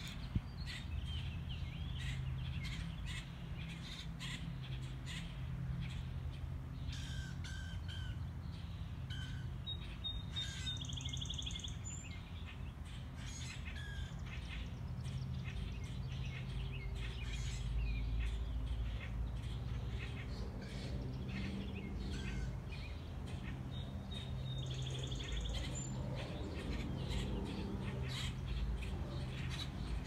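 Birds chirping and calling in the trees, many short notes coming and going, over a steady low rumble.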